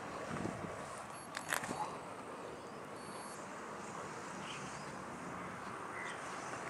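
Faint steady outdoor background noise, with a couple of sharp clicks from handling the camera about one and a half seconds in.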